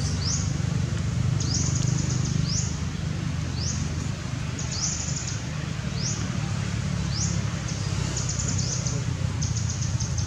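Outdoor forest ambience: short high rising calls and rapid pulsed trills repeating about once a second, over a steady low rumble.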